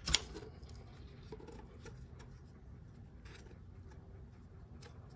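Faint clicks and rubbing of the metal parts of a two-stage engine oil pump being handled and fitted back together by hand, with one sharper click just after the start and a few light ticks later.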